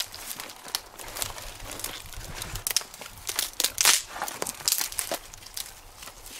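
Dry birch bark crinkling and rustling as it is handled and folded around split kindling, in irregular papery crackles, loudest about four seconds in.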